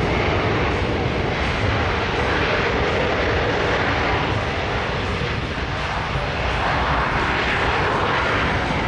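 Jet noise from the Boeing C-17 Globemaster III's four Pratt & Whitney F117 turbofan engines running at high power, a steady loud rush.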